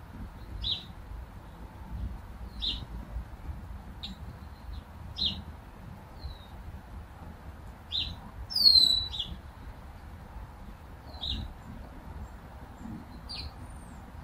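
Small birds chirping: short, high chirps every second or two, with one louder call that sweeps downward in pitch about halfway through, over a steady low rumble.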